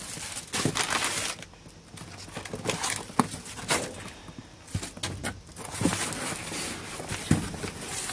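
Plastic food packaging, a bag of shredded cheese and a plastic raspberry clamshell, crinkling and rustling as it is handled in a cardboard box, with scattered sharp clicks and light knocks.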